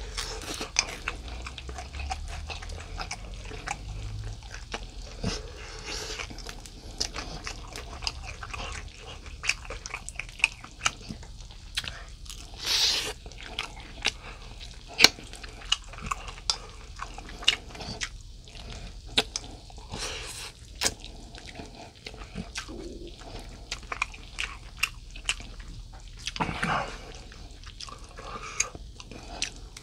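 Close-up chewing and biting of someone eating rice and grilled mackerel, with many sharp clicks and a few brief louder rustling bursts.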